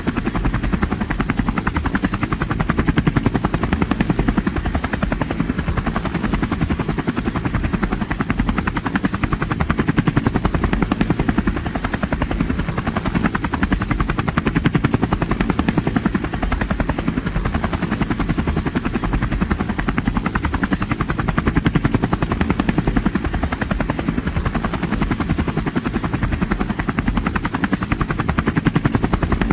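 Helicopter cabin ambience in steady flight: the rapid, even beat of the rotor blades over continuous engine and transmission noise, heaviest in the low end.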